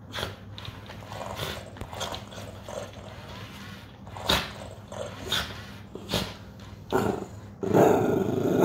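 Small dog sniffing and nosing at a furry animatronic toy cat, with a series of short sharp sniffs and a louder, longer growl near the end.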